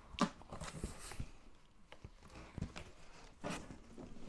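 A cardboard box being closed and handled, giving scattered light knocks and rustles at irregular intervals.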